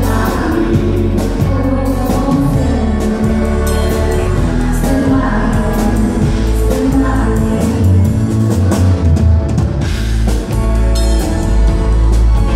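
Live band playing: a woman singing lead with backing vocals over a drum kit and electric guitar.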